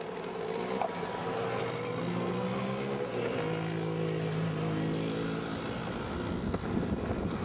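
Engines of passing road traffic, a motorcycle and then an SUV, giving a steady hum that changes pitch a little over three seconds in.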